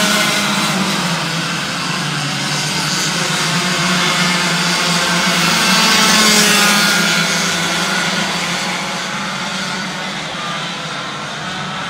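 A pack of 60cc two-stroke racing karts running at high revs, many engine notes overlapping and rising and falling in pitch. It is loudest about six seconds in, then fades as the pack moves away around the circuit.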